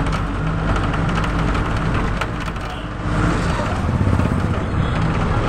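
Steady engine hum and road noise from a moving road vehicle in street traffic, with a few sharp clicks near the start and about two seconds in.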